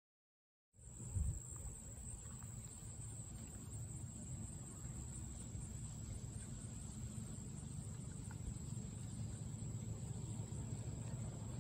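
A steady high insect drone over a low wind rumble on the microphone, starting abruptly about a second in, with a brief low bump just after it begins.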